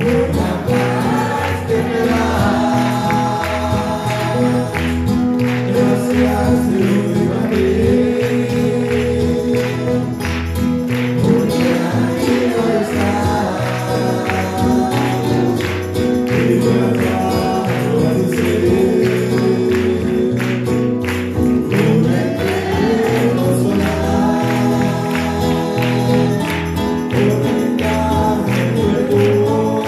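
Live Christian worship song: two male voices singing over acoustic guitar and keyboard, with a steady beat.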